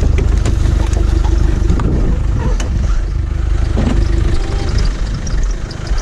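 Car engine idling: a steady low rumble with a fast even pulse, with a few light knocks over it.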